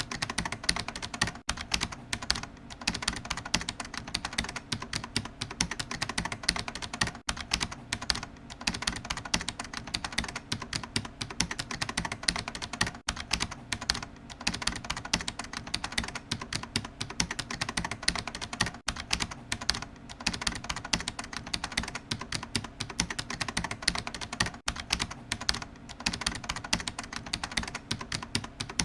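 Computer keyboard being typed on rapidly and continuously, a dense stream of key clicks with no pauses.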